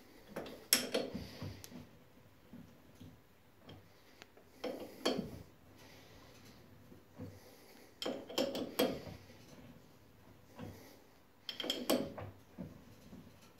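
Metallic clicks and clatter from a chuck key being fitted and turned in a Boxford lathe's three-jaw chuck as the chuck is rotated by hand, in four short bursts a few seconds apart.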